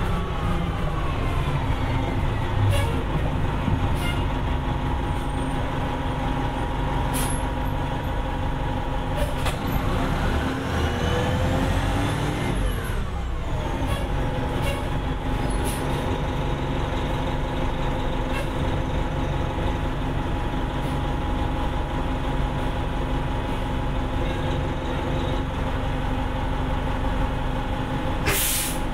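A 1989 Gillig Phantom transit bus's Detroit Diesel Series 50 diesel engine under way: its pitch falls at the start, climbs as the bus picks up speed and drops sharply at an upshift about halfway through, then holds steady at cruise, with occasional rattles and knocks. A brief loud hiss near the end.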